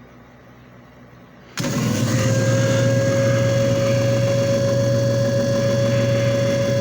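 JFJ Easy Pro disc repair machine switched on about one and a half seconds in: its motor spins up quickly, then runs steadily with a low hum and a steady whine.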